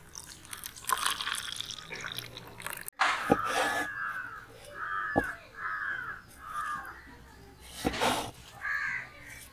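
Thick fruit juice pouring into plastic cups for the first few seconds, then a knife tapping now and then on a wooden chopping board as strawberries are sliced. Over the slicing, a crow caws about five times, the loudest call about three seconds in.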